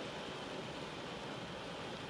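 Rain falling on a car window, an even, unbroken hiss with no single drops standing out.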